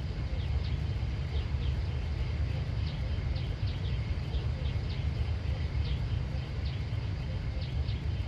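Outdoor country ambience: a steady low rumble with small birds chirping over it, short falling chirps about twice a second.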